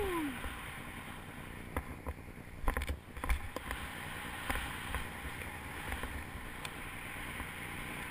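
Skis running through fresh powder snow, a steady rushing hiss, with wind buffeting the camera microphone. A few knocks come about two to three seconds in.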